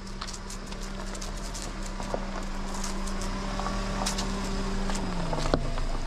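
A motor vehicle on the move: a steady engine hum that drops in pitch about five seconds in as it slows. Scattered short clicks and rattles sit over it.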